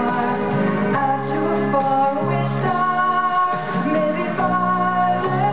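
Music: a song with a singing voice over held instrumental chords, the notes changing about every second.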